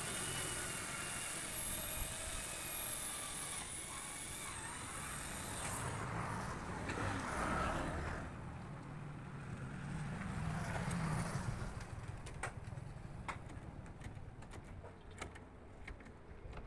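Motorcycles passing on the road, their engines rising and fading. A run of light, sharp clicks comes in the second half.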